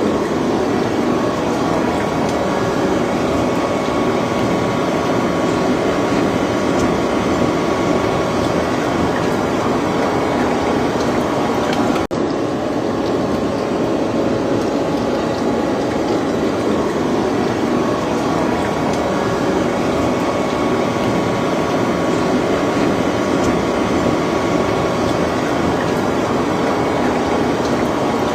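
Gear-cutting machine running steadily as it cuts the teeth of a steel herringbone gear, a dense, continuous machining noise with a brief break about twelve seconds in.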